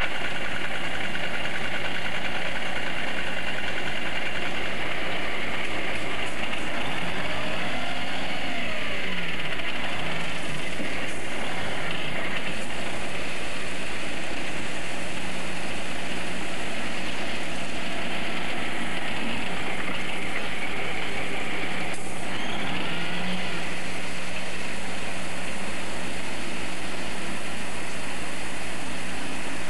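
Dump truck's engine running steadily as its raised bed tips out a load of road base material, with a steady low hum and the pitch bending briefly a couple of times.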